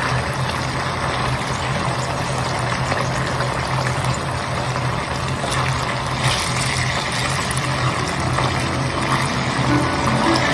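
Olive oil bubbling and sizzling in a small clay pot as chicken and mushrooms simmer in it for ajillo, with a steady low hum underneath. One brief knock about six seconds in.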